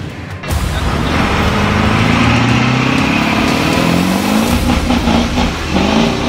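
A motor vehicle engine revving, its pitch climbing steadily over about three seconds, then rising again briefly near the end.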